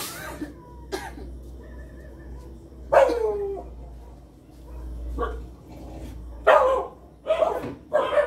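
A dog barking: one call falling in pitch about three seconds in, then several barks in quick succession near the end.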